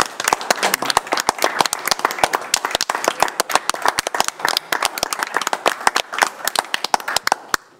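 A small group of people applauding: many overlapping hand claps that thin out and stop near the end.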